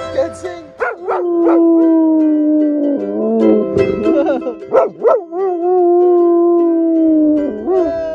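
Black Labrador howling along to a mandolin being strummed: several long, drawn-out howls that slide slowly down in pitch, with short wavering howls near the end, over the mandolin's plucked chords.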